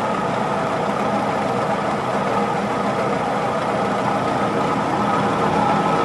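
Moss Caribbean Breeze 36-inch industrial ceiling fan running steadily on medium-high, a steady motor hum with the rough running of worn bearings, which the owner takes to be pitted.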